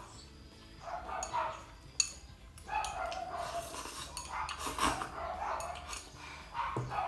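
Neighbour's dog barking loudly in several short bouts, with one sharp click about two seconds in.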